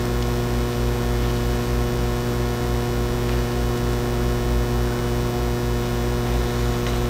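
Steady electrical mains hum with a buzz above it, unchanging throughout; nothing else stands out.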